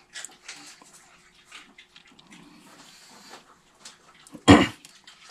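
Soft mouth and handling sounds of someone eating spooned custard apple flesh, then one loud, short thump about four and a half seconds in.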